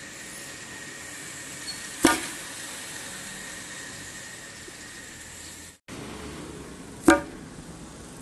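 Two sharp pops about five seconds apart: a toy air-pressure foam rocket launcher firing its foam missile, each pop with a short tail, over steady outdoor background noise.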